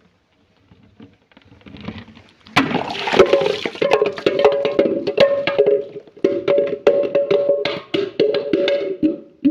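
Glass being crushed: faint crackles, then from about two and a half seconds in a dense run of crunching cracks and clinks with a ringing tone underneath.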